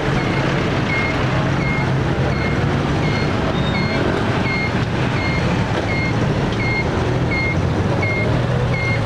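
An electronic beep repeating evenly, about one and a half times a second, over steady engine and street-traffic noise.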